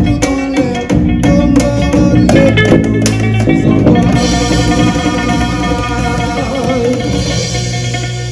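Live band playing with drums and guitar; about halfway in the drum beat stops and the band holds a final chord that slowly fades as the song ends.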